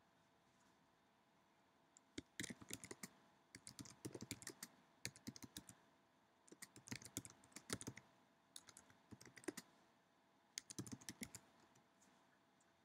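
Typing on a computer keyboard: runs of rapid key clicks in several bursts with short pauses between them, starting about two seconds in.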